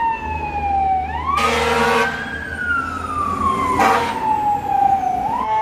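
Emergency-vehicle siren in a slow wail, falling, then rising and gliding down again over a few seconds, with two short loud blasts cutting across it, about a second and a half in and again near four seconds.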